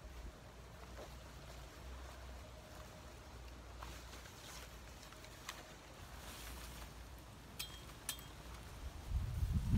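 Quiet outdoor ambience with a low wind rumble on the microphone, a few faint ticks, and two short high chirps about three quarters of the way through. Near the end come loud, low thumps close to the microphone.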